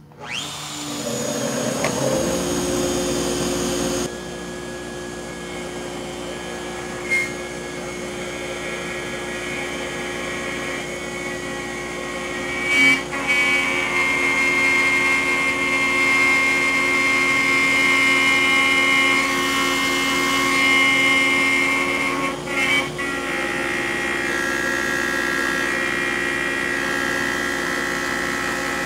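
CNC router winding up to speed, then running steadily as a long 1/4-inch roughing endmill mills a pass into hard Honduran rosewood, a constant whine over the noise of the cut. A few short sharp ticks a little past the middle and later on.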